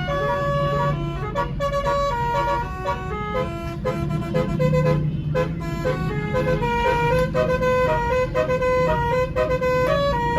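Basuri multi-tone "telolet" bus horn playing a tune of held notes that change pitch every fraction of a second, over a steady low engine rumble.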